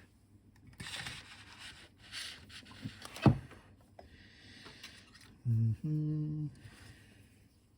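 Small handling noises at a workbench while wire ends are being tinned: short stretches of hissing rustle, one sharp knock about three seconds in, and a brief low hum in two parts about five and a half seconds in.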